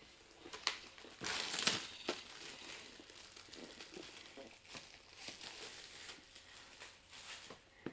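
Packaging crinkling and rustling as board game components are handled, loudest in one burst of about half a second a little over a second in, then scattered small rustles and clicks.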